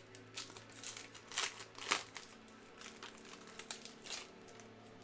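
Foil wrapper of a trading card pack crinkling as it is handled and opened, with irregular crackles, the sharpest about a second and a half in and again near two seconds.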